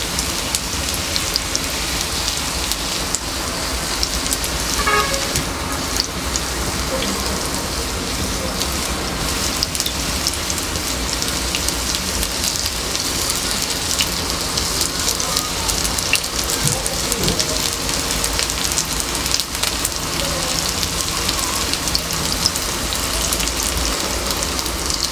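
Potato fries sizzling in a small frying pan heated by a bed of burning matchsticks: a steady hiss dotted with fine crackles.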